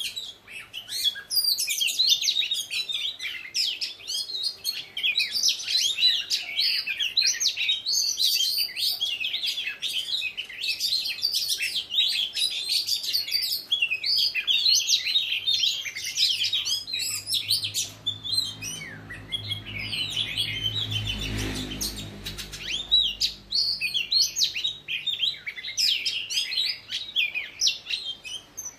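Several caged female oriental magpie-robins singing against each other, a dense, continuous stream of varied whistles and chirps. A low rumble swells and fades about two-thirds of the way through.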